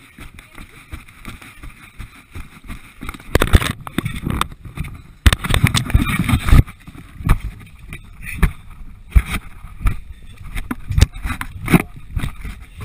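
Knocks, scrapes and rustling from a body-worn camera as its wearer runs up a dirt trail and crawls along the ground. The noise comes in irregular thumps, with a loud, dense stretch of scraping and rubbing in the middle.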